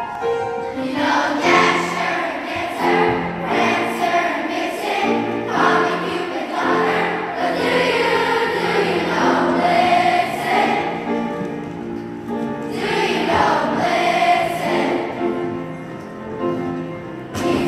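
A middle school choir of young voices singing in unison with upright piano accompaniment. The piano plays alone at first, and the choir comes in about a second in.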